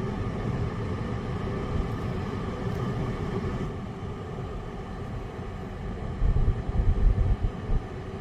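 Car driving, with steady road and engine noise heard from inside the vehicle; a few louder low rumbles come about six to eight seconds in.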